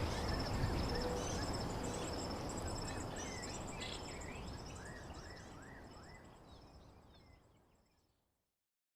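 Outdoor ambience: birds chirping and insects trilling over a low rumbling noise, all fading out to silence.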